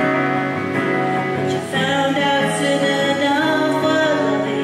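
A woman singing into a microphone while playing an acoustic guitar, with long held notes over the guitar chords.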